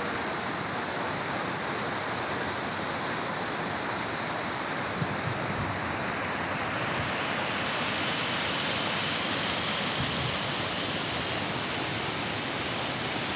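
Creek water rushing steadily over rocks and riffles: a constant, even rush of flowing water.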